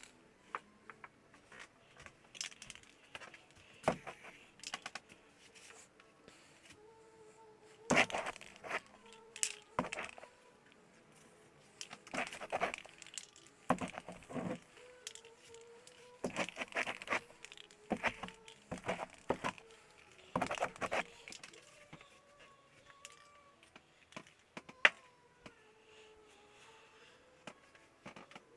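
Repeated bursts of scraping and crinkling, each a second or two long, as paint is rubbed and smeared across a canvas by a gloved hand. A few sharp clicks fall in between.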